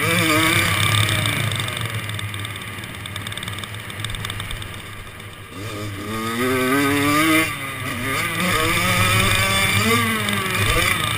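Kawasaki KX100 two-stroke dirt bike engine under hard riding, its pitch climbing and falling with the throttle. It eases off and goes quieter for a few seconds in the middle, then revs hard again, drops back sharply, and pulls once more.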